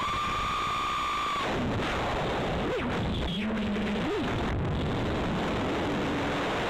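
Brushless motors and 5-inch props of an FPV quadcopter (Xing 2306 1800kv motors) whining under a steady hiss. The pitch holds high for about a second and a half, drops away as the throttle is cut, jumps up briefly twice with a low hum between, and starts climbing again near the end.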